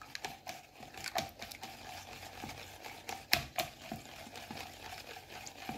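A whisk beating egg and milk in a bowl: quick, uneven clicks and taps of the whisk against the bowl, with a few louder ones a little past halfway.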